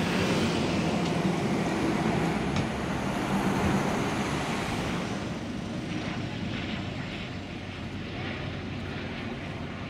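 A New Routemaster diesel-electric hybrid double-decker bus drives past close by with a steady engine and tyre rumble, followed by a car. The traffic noise eases off over the second half.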